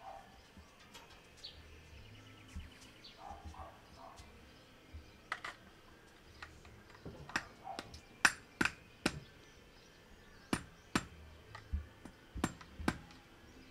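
A rubber mallet tapping a flat screwdriver set on a star nut inside an MTB fork's steerer tube: about a dozen sharp knocks, singly and in pairs, starting about five seconds in. The taps drive the star nut down and straighten it after it went in tilted.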